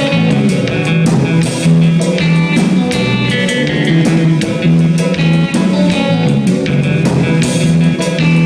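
A live rock band playing: guitar riffs over bass and drum kit.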